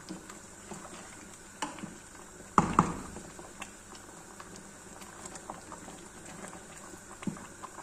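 Thick oatmeal-and-chicken porridge bubbling in an aluminium pot while a wooden spoon stirs it, with small scraping clicks. About two and a half seconds in, the spoon knocks once, louder, against the pot.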